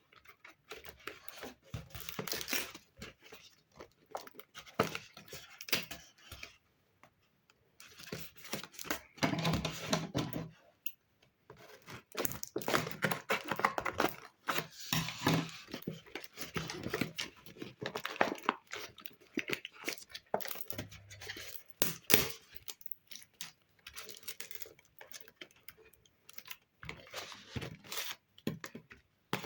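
Paper being handled by hand, crinkling and rustling in irregular bursts with a few short pauses.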